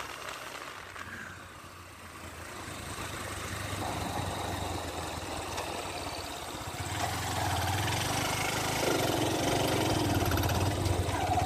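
Motorbike engine running steadily as it rides along a road, gradually getting louder.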